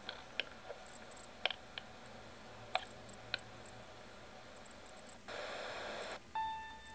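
A few short, sharp clicks over quiet room tone, then about five seconds in a second-long burst of static hiss as the picture breaks up, followed near the end by a steady electronic keyboard tone as music begins.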